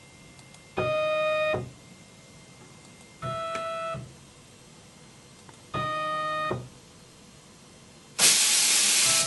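Stepper motors of a Martin Dot Liner solder paste dispenser whining as the XY gantry jogs the head in three short moves, each a steady pitched tone lasting under a second. Near the end comes a loud burst of air hiss lasting about a second.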